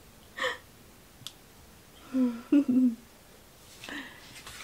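Brief soft humming voice sounds about two seconds in, after a short breathy sound near the start and a small click.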